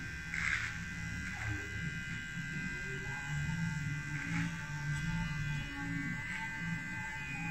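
Electric beard trimmer buzzing steadily as it cuts through a thick beard, with a couple of brief louder rasps.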